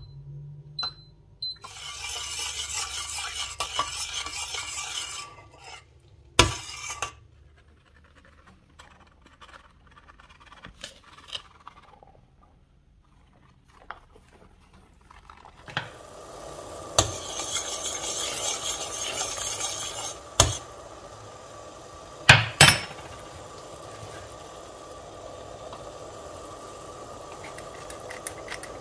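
Cooking at a steel saucepan: a few sharp metal clinks and knocks, and longer stretches of dry, steady rasping from a hand-crank flour sifter sifting flour.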